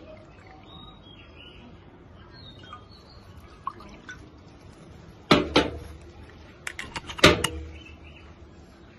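Arak poured from a steel jigger into a glass mixing glass, faint, with birds chirping. Then, from about five seconds in, a few sharp clinks and knocks as the metal jigger and glass are handled and set down on a table, the loudest near the end.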